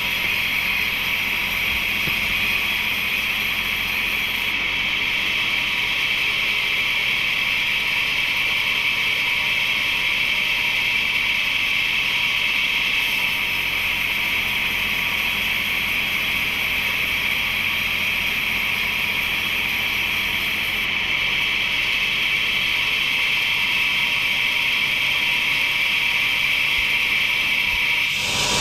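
Wood-processing machinery running steadily, a constant high hiss with a faint steady hum under it.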